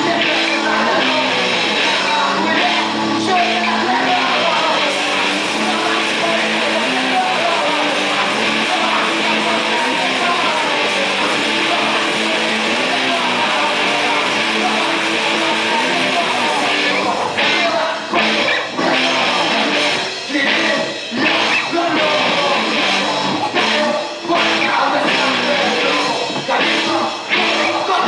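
Live rock band playing loud, with electric guitar. After a little over halfway the playing breaks into short stop-start hits with brief gaps between them.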